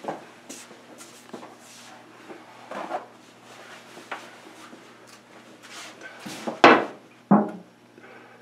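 Someone handling things in a woodshop: scattered light knocks, clinks and rubs, with two sharper knocks near the end.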